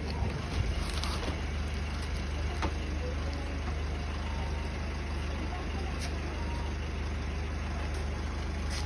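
Motorcycle engine idling steadily, with a few faint clicks.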